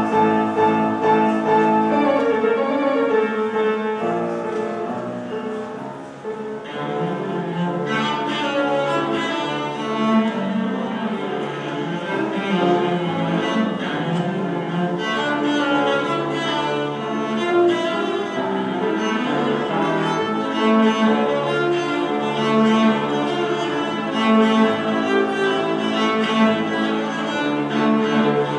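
Solo cello bowed, playing a melody in long held notes.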